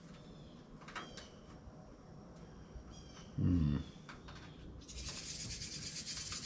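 Hand file rasping steadily on the steel edge of a bicycle fender patch piece, starting about five seconds in. Before it come faint clicks of handling the metal, a few high chirps, and a short hum of a man's voice about halfway.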